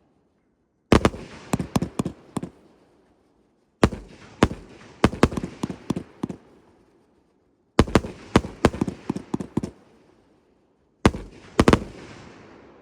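Multi-shot firework cakes firing in four rapid volleys, each a cluster of sharp bangs followed by a fading echo, with short silent gaps between volleys.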